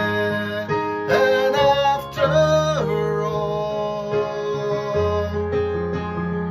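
A man singing a pop song over acoustic guitar accompaniment.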